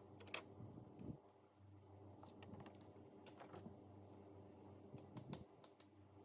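Near silence: a low steady hum with a few faint, sharp clicks and taps scattered through, the loudest about a third of a second in.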